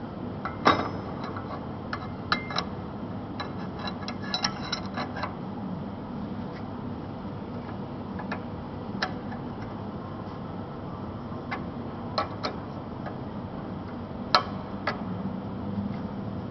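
Irregular metallic clicks and knocks as a steel insert is handled and fitted onto a bending machine, over a steady low hum. The sharpest knock comes about a second in and another near the end, with a quick cluster of clinks in between.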